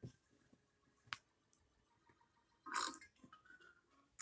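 Near silence: room tone, with one faint click about a second in and a short faint noise just under three seconds in.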